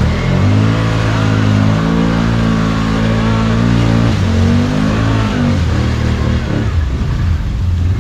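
Can-Am Outlander ATV's V-twin engine revving. It holds high revs for about three and a half seconds, drops briefly, revs up again, then runs lower and unevenly.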